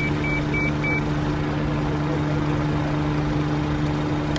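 Police pickup's engine idling with a steady low hum, with four short, evenly spaced high beeps in quick succession in the first second.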